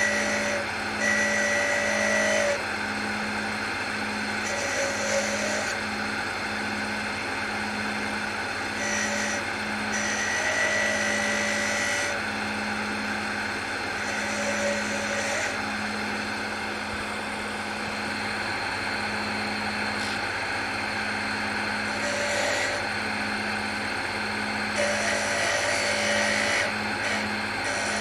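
Wood lathe motor running steadily while a spindle gouge cuts beads into the spinning wood. The cuts come in several short passes, each adding a higher-pitched whine over the hum.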